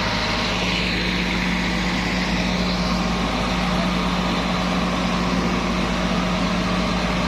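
Engine idling steadily, a constant low drone that does not change.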